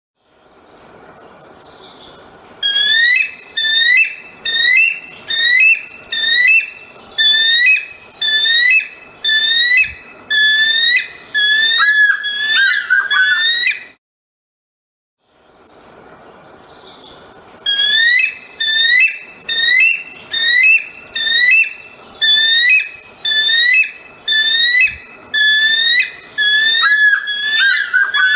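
An eagle calling: a series of high whistled notes, one about every second, each bending up and down, ending in a quick stuttering chatter. After a short silence partway through, the same sequence repeats.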